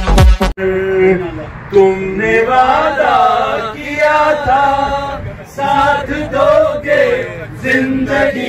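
A man chanting melodically into a handheld microphone, in long held notes that rise and fall. Loud electronic music cuts off about half a second in.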